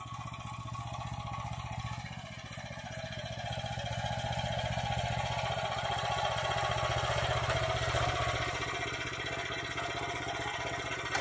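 Homemade articulated mini tractor running on a walk-behind tractor's engine, driving across the field. The engine runs steadily with a fast, even pulse and grows louder around the middle as the tractor comes closer, then eases slightly near the end.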